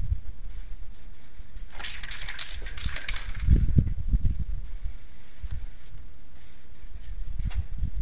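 Aerosol spray paint can hissing in a few short spurts over about a second and a half. Low rumbling thumps follow right after.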